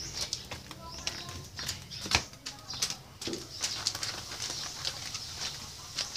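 Clicks and rustles of a phone being handled and carried at close range, with a few faint low bird calls; one sharp click about two seconds in is the loudest sound.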